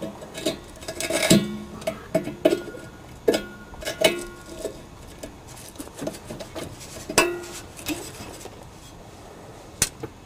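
Pliers clinking and scraping against a steel exhaust hanger rod as a rubber exhaust hanger is worked onto it: a series of irregular metallic clinks and knocks, thickest in the first few seconds, with a loud one about seven seconds in and a last sharp one near the end.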